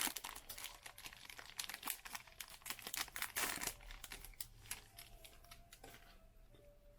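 Foil wrapper of a Topps trading-card silver pack being torn open and crinkled. The crackling is dense for the first few seconds and dies down after about five seconds.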